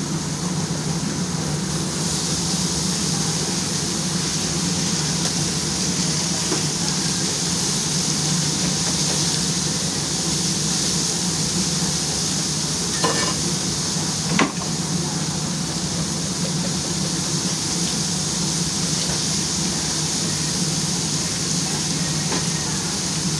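Steady hissing noise over a low hum, with two light clicks a little past halfway.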